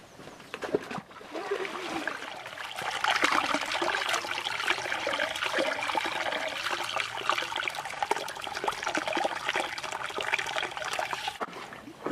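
Water trickling and splashing down a rock channel into a shallow pool, a steady babble that rises about a second in.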